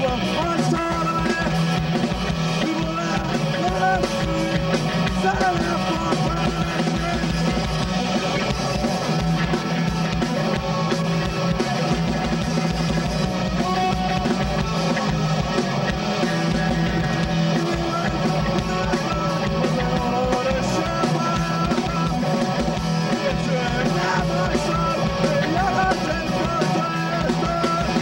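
A rock band playing live: electric guitar, electric bass and drum kit in a punk-rock song, running steadily without a break.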